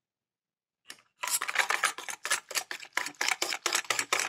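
Large steel spoon stirring shikakai powder into hot water in a stainless-steel bowl, scraping the bowl in fast, even strokes about four or five a second, working the mixture up into a froth. The stirring starts about a second in.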